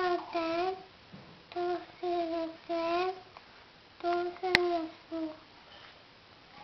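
A young child chanting in a sing-song voice in three short phrases with pauses, reciting the two times table by rote. A single sharp click about four and a half seconds in.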